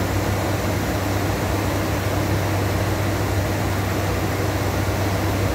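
Steady in-flight cockpit noise of an ATR 72-500 turboprop: a constant low hum under a broad, even rush of air.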